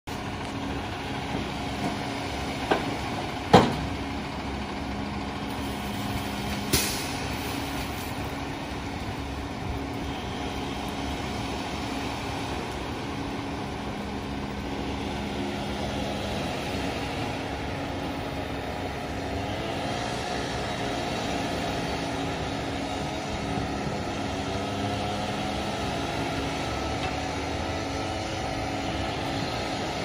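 Concrete mixer truck's engine running steadily while a water hose sprays its discharge chute, with a few sharp knocks in the first seven seconds, the loudest about three and a half seconds in.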